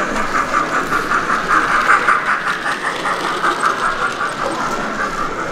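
Model train running on the layout: a steady mechanical whirr with fast, even clicking.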